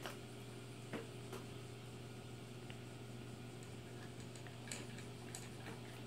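Toy poodle eating dry kibble from a bowl: a handful of short, sharp crunches and clicks at irregular intervals as it chews and its teeth and kibble knock against the bowl. A steady low hum runs underneath.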